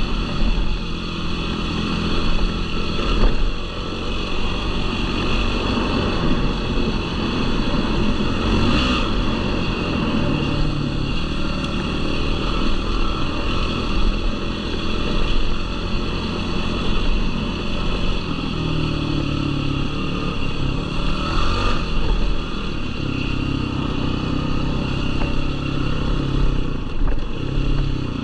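Yamaha YFZ450R quad's single-cylinder four-stroke engine running under load on a dirt trail, its note rising and falling repeatedly as the throttle opens and closes.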